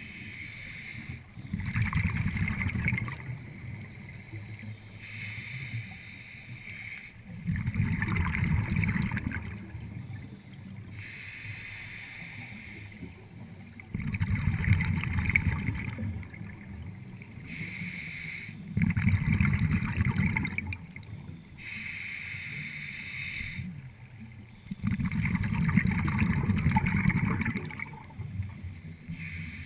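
Scuba diver breathing through a regulator, heard through the camera's waterproof housing. A short hiss on each inhalation alternates with a longer low rumble of exhaled bubbles, about five breaths, each a few seconds apart.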